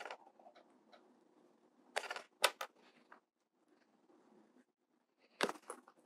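A few short clicks and snaps as a seam ripper cuts through the stitches holding an old strap attachment, in small clusters about two seconds in and again near the end.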